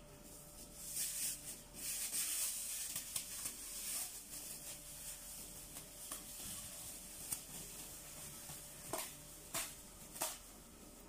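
Thin plastic film rustling and crinkling as it is handled and pressed over a mixing bowl, with a few sharper crackles near the end.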